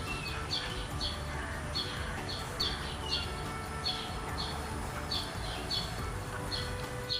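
Small songbird chirping over and over, short high chirps about two or three a second, often in quick pairs, over a steady low rumble.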